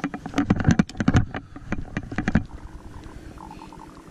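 A quick run of knocks and clatter as fishing rods and gear are handled on wooden wharf planks, lasting about two and a half seconds before it dies down.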